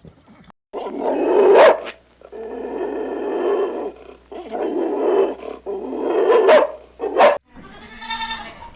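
A dog growling in five drawn-out bouts of about a second or more each, separated by short pauses; some bouts end in a sharp snarl.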